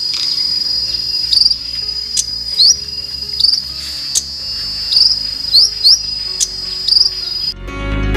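Caged konin songbird singing a string of short, sharp rising chirps, one every half second to second, over a steady high-pitched insect buzz. Near the end it cuts off into loud electronic intro music.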